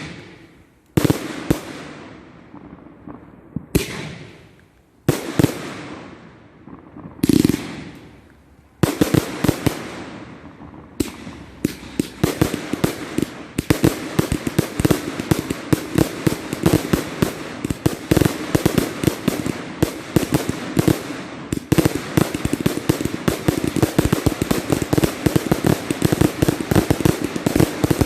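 Multi-shot firework barrages firing: a few single loud bangs, each fading away, then from about nine seconds a dense, continuous rapid volley of shots and crackling that thickens further on.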